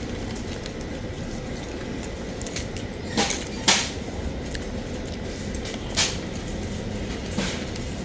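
Crunching of crispy fried chicken being bitten and chewed: a few short crisp crunches, two close together near the middle and two more later, over a steady background hiss.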